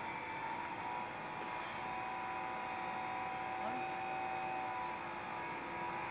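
A steady mechanical hum with several held tones over a faint hiss.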